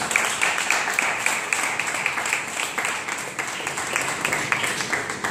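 Small audience applauding: many hands clapping together at a steady pace.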